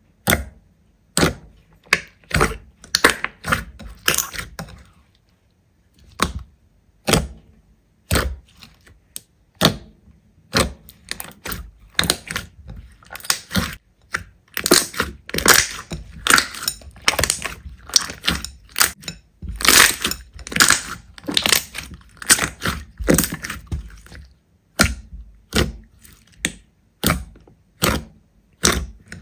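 Slime being squeezed and pressed by hand, giving off sharp pops and crackles in irregular bursts. They come in sparse single snaps at first, crowd together into dense crackling through the middle, then thin out again near the end.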